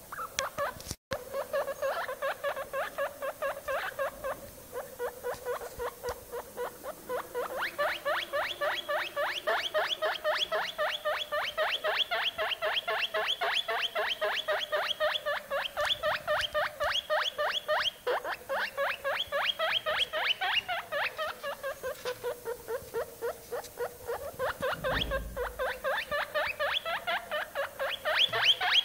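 Guinea pig pup squeaking over and over in a fast, even series, about five short squeaks a second, the pitch wavering slightly up and down.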